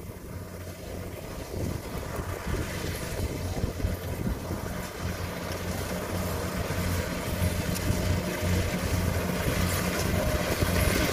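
Kubota rice combine harvester's engine running steadily as it cuts the crop, a low, even hum that grows louder as the machine comes closer.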